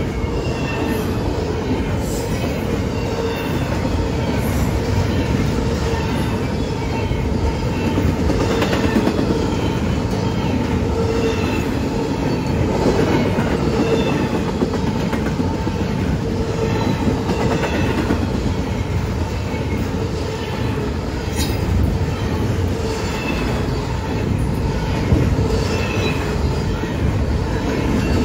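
Double-stack intermodal freight cars rolling past at speed: a steady rumble and clatter of steel wheels on rail, with repeated sharp clicks as the wheels pass over the rail joints.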